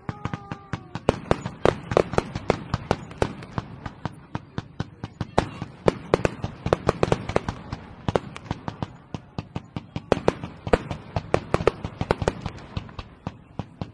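Fireworks going off in rapid, irregular succession: many sharp cracks and bangs, several a second, over a low background rumble.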